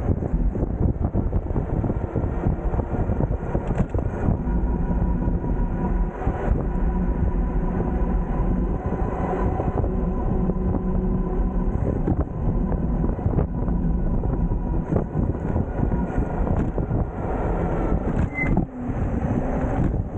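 Wind rushing over the microphone and tyre rumble from a moving electric bike, with a faint steady whine running through it. A short high chirp comes near the end.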